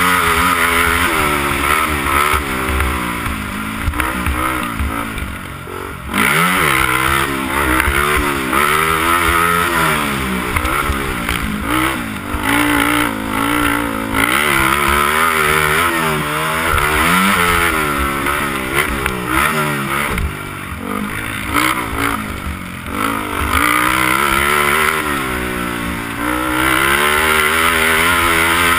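Honda TRX300EX sport quad's single-cylinder four-stroke engine, heard from the rider's seat, revving up and falling back again and again through the gears under hard racing throttle. About six seconds in the revs sag, then surge back up.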